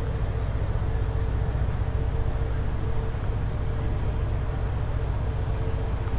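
Steady low rumble of a docked cruise ship's machinery running, with a faint steady hum above it.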